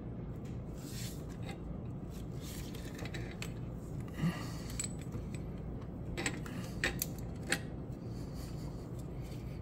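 Hand tools on a fuel injector puller tool: a few light metallic clicks and clinks of a ratchet and wrench against metal, scattered mostly through the second half, over a steady low background hum.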